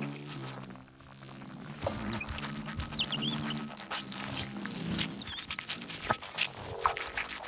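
Animated-film soundtrack: low, held music notes under small sound effects, with a few short, high chirps about three seconds in and scattered light clicks and taps.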